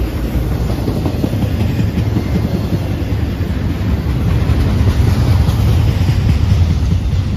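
Double-stack intermodal freight train of container well cars rolling past: a steady rumble of steel wheels on the rails with rapid clicking, growing a little louder in the second half.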